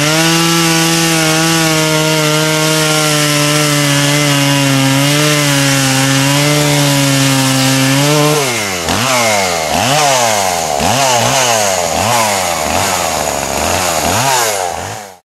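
Two-stroke chainsaw sawing cedar. It holds a steady high pitch for about eight seconds, then its speed swings up and down about once a second, and the sound cuts off suddenly near the end.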